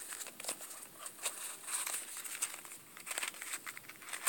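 Light rustling and crinkling with scattered small clicks as a cleaning cloth is tucked into a harmonica case and cardboard packaging is handled.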